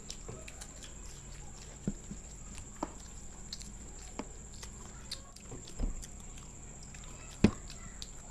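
Close-up chewing and crunching of crisp samosas, with scattered small clicks and crackles. A low thud comes near the middle and a sharp tap, the loudest sound, near the end.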